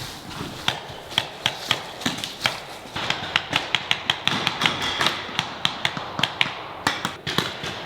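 Paintball markers firing, a rapid, irregular run of sharp pops, several a second, thickest in the second half.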